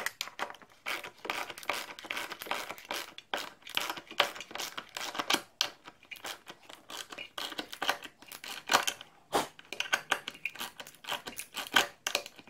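A hex bolt in a wooden block jig being handled and turned by hand, giving a long run of irregular scrapes and clicks of metal against wood.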